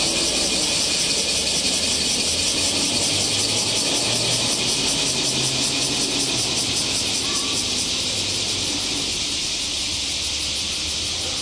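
Chorus of summer cicadas: a loud, steady high-pitched buzz with a fast pulsing.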